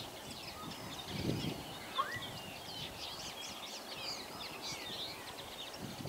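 Common starling singing: a rambling run of short whistles, chirps and slurred notes, with a clear rising whistle about two seconds in. A brief low rumble sounds about a second in.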